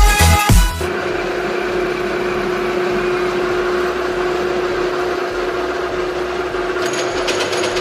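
Electric hoist motor running with a steady hum and one constant tone as it lifts the hook, starting about a second in.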